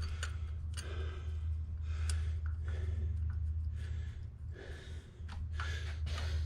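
A person breathing audibly in irregular breaths, with a few light clicks, over a steady low hum.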